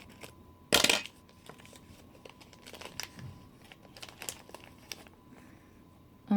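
Toy packaging being opened by hand: one loud tearing rip about a second in, then light crinkling and rustling of the wrapper that dies away near the end.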